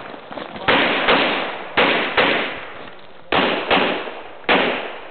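Semi-automatic pistol firing seven shots: three quick pairs about a third of a second apart, then a single shot. Each shot leaves an echoing tail that fades over about a second.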